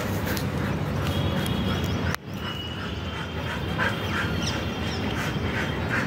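Birds calling, one short call repeated evenly about two or three times a second, over steady outdoor background noise.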